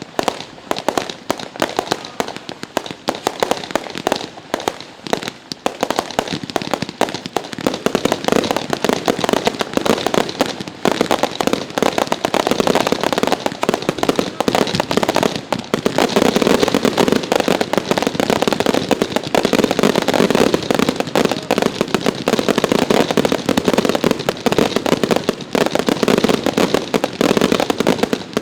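Consumer fireworks going off in a dense, continuous barrage of rapid bangs and crackles, building up about eight seconds in and at its thickest through the second half.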